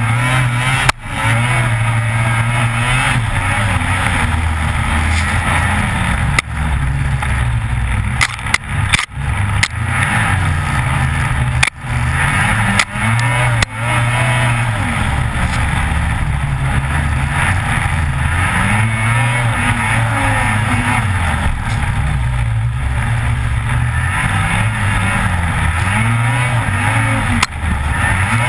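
Lynx Rave RE 600 snowmobile's two-stroke engine running hard, its pitch rising and falling again and again as the throttle is worked over a bumpy trail. Several sharp knocks and brief drop-outs come as the sled hits bumps.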